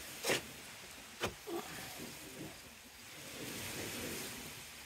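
Two sharp clicks about a second apart, then a soft rustle, from hands working the string trimmer's plastic spool head and nylon trimmer line.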